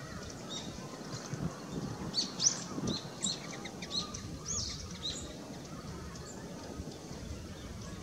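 A run of short, high, thin bird chirps, bunched between about two and five seconds in, over a steady low hum of background noise.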